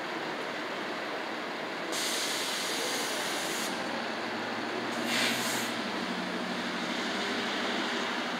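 Steady street traffic noise on wet pavement, with two stretches of hissing, the first about two seconds in and lasting over a second, the second shorter, and a low engine hum joining about halfway through.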